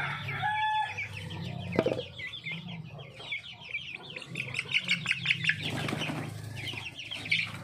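A flock of chickens peeping and clucking without pause, with a short held call near the start and a sharp knock about two seconds in. A chicken flaps its wings in a brief flurry about six seconds in.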